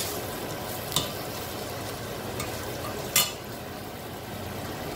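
Spiced okra frying in a stainless steel pot, a steady sizzle, while the raw masala cooks. A steel spoon stirs and scrapes the pot, clinking against it twice: about a second in and again a little after three seconds.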